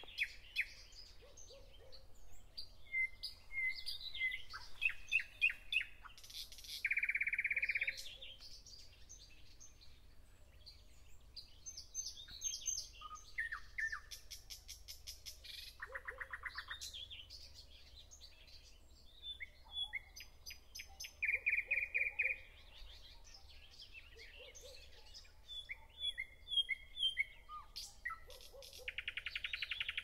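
Dawn chorus of many songbirds singing and chirping over one another. A loud, rapid trill of about a second recurs four times, with fainter lower calls repeating in the background.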